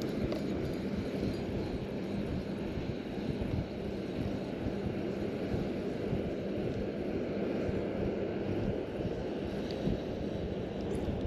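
Wind buffeting the microphone outdoors: a steady low rushing noise with a few faint ticks.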